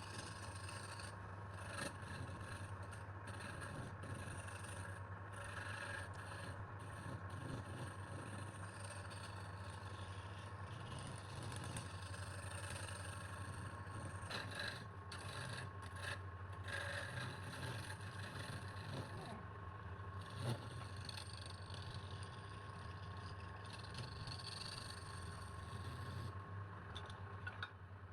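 Wood lathe running steadily, its motor humming, with a turning tool scraping against the spinning wood.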